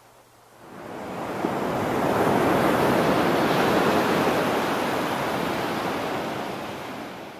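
Ocean surf washing on a beach: a steady rushing noise that swells in over the first couple of seconds and slowly fades toward the end.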